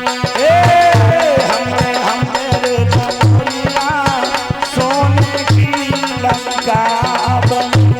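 Instrumental interlude of an Indian folk song: a driving hand-drum rhythm with a gliding, bending melody line over it.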